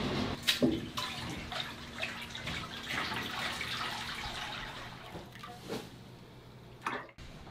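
Water running and splashing, with scattered clicks and knocks.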